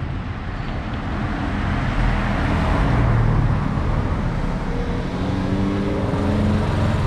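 Street traffic: a car passing, then from about five seconds in a small motorcycle's engine drawing closer, its note climbing slightly.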